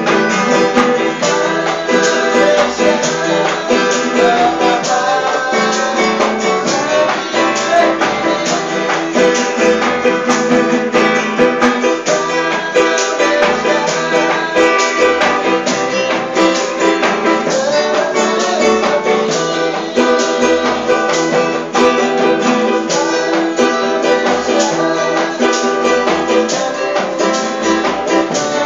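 A band playing a song: guitars over a steady beat.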